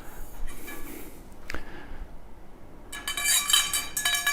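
Metal parts of a compost tumbler's stand clinking against each other as they are handled: a single click about a second and a half in, then a cluster of clinks with a lingering metallic ring in the last second and a half.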